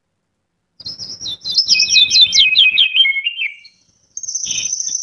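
AI-generated birdsong sound effect playing back: quick chirps and trills that slide downward in pitch, starting about a second in, breaking off briefly, then a second burst of chirping with a high steady whistle near the end.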